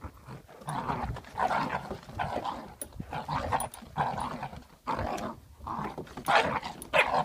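Play growling from a Belgian Malinois puppy and an adult Doberman as they tug a toy between them: short, rough growls one after another, about two a second.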